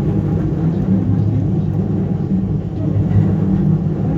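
Joban Line commuter train noise: a steady low rumble with a constant hum.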